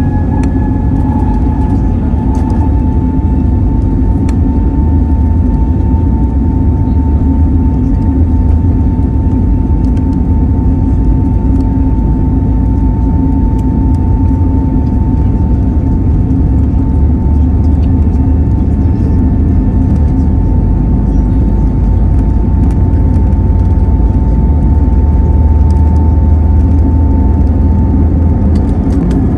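Airbus A320neo's CFM LEAP-1A engines at takeoff thrust during the takeoff roll, heard from inside the cabin over the wing: a steady high fan whine over a loud low rumble.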